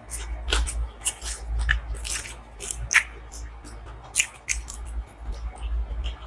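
Close-miked chewing and biting: irregular wet mouth clicks and smacks, a few a second.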